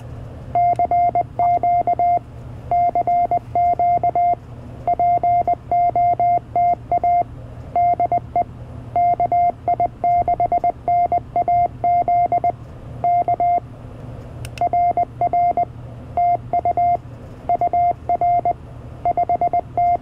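CFT1 CW transceiver's sidetone sending a stored memory message, set up as a CQ call, in Morse code: a single high beep keyed in dots and dashes, over a steady low hum. A brief click about two thirds of the way through.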